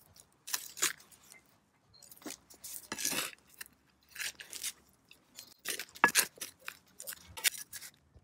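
Small metal hand trowel scraping and scooping through gritty potting mix in a terracotta pot: short rough scrapes in irregular bursts, with a few sharp clicks about six seconds in.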